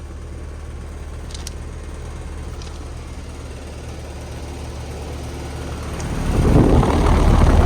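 2007 Bryant 3-ton central air conditioner condenser running with a steady low hum; its outdoor fan has a badly bent blade that needs replacing, which makes the unit rattle and sound bad. About six seconds in, a much louder rushing noise swells up and holds for the last couple of seconds.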